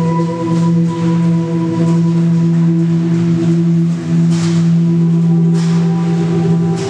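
A steady low drone with several held, ringing tones layered over it, like a singing bowl. A few short, noisy swishes cut across it, the clearest about four and a half and five and a half seconds in.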